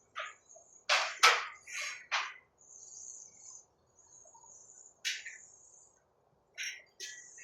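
Sharp knocks: a cluster of four or five in the first two and a half seconds, one about five seconds in, and two more near the end. Between the knocks a cricket or similar insect keeps up a steady high-pitched trill.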